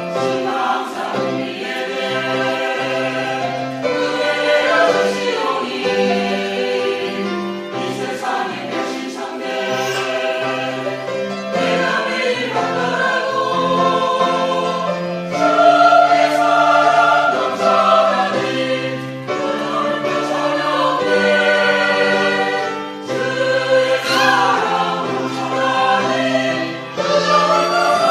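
Church choir singing a hymn in several parts, with full held chords that change every second or two.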